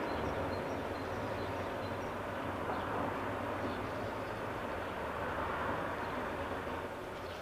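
Steady engine noise with a rushing hiss that begins and cuts off abruptly.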